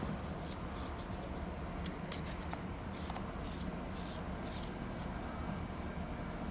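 Light, irregular scratching and rustling as JB Weld epoxy is worked over the repair by hand, over a steady low background hum.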